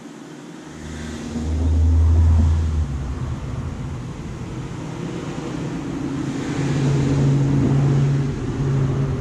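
A motor vehicle's engine running, with a low steady hum that swells about two seconds in, eases, and grows louder again near the end.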